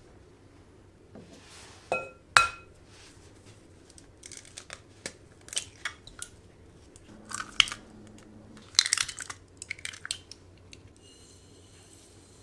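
Eggs cracked on the rim of a glass mixing bowl: two sharp taps about two seconds in with a brief glassy ring, then a string of crackles as eggshells are broken open and pulled apart. Near the end a soft hiss of granulated sugar poured into the bowl.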